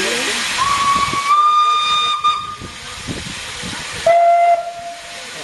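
Steam locomotive whistle blown twice: a long, higher blast of about two seconds that rises slightly as it opens, then a shorter, lower blast about four seconds in. Steam hisses from the small saddle-tank engine before the first blast.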